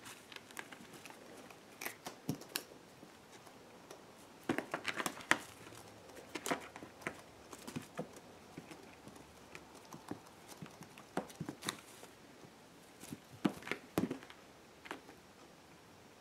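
Cat's claws and paws scratching and tapping on a sisal-and-carpet scratcher as it bats at a feather wand toy: scattered quick scratches and taps that come in a few short flurries.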